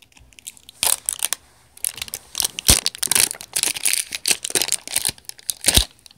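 Crinkly plastic wrapper being peeled and torn off an L.O.L. Surprise toy ball by hand, in a run of irregular crackles and rustles, with two sharper clicks about three seconds apart.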